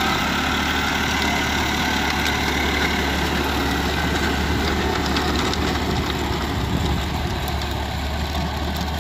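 New Holland 3230 tractor's 42 hp diesel engine running steadily under load, driving a six-foot Shaktiman rotavator through the soil.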